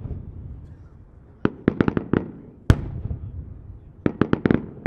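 Aerial firework shell from a Maltese-style multi-break cylinder bursting in the sky: a quick rattle of about five sharp bangs, a single loud report near the middle, then another quick cluster of bangs near the end, each echoing away.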